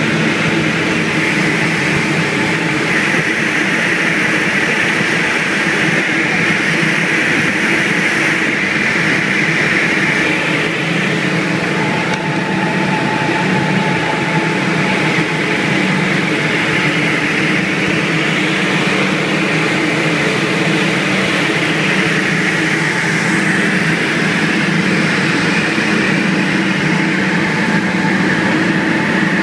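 Diamond DA42 Twin Star's twin engines and propellers running in steady cruise, an even, unchanging drone as heard inside the cockpit.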